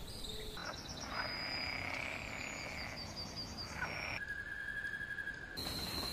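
Nature ambience recordings spliced together: a chorus of animal calls with rapid repeating trills and a few quick falling calls, then a steady high-pitched tone, then a steady, even higher tone. Each change comes abruptly.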